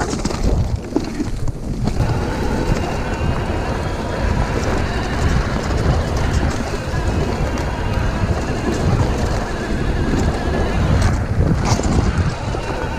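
Wind buffeting the microphone over the steady rumble and rattle of a Frey EX Pro e-mountain bike's tyres and frame on a dirt woodland trail at speed.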